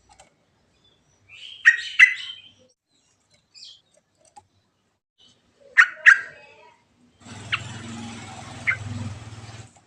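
Yellow-vented bulbul calling in short, sharp paired notes, twice. Near the end a steady hiss with a low hum comes in, with two more short notes over it.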